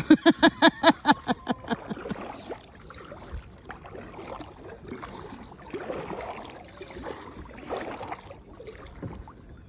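A quick string of laughter, pitched 'ha-ha-ha' pulses fading away within about two seconds. After that come soft paddling and water sounds from a kayak on a calm river.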